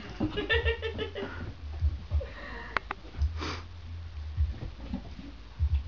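Shetland sheepdog puppy sniffing at a helium balloon. A short squeaky, pulsing sound comes about a quarter of a second in. Two sharp ticks follow near the middle, then a breathy sniff and low thumps.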